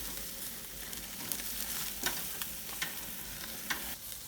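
Rohu fish and chicken sizzling on a charcoal barbecue grill: a steady hiss with a few sharp crackles.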